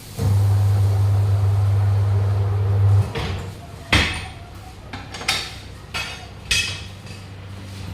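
A steady low hum for about three seconds, then four sharp metal strikes a second or less apart: hammer blows on the steel rim and tyre while a 7.00 R15 tyre is worked off or onto its wheel.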